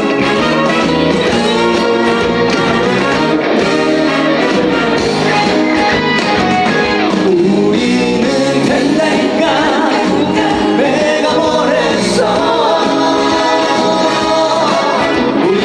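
Instrumental intro of a trot song, a full band backing track playing loud and steady.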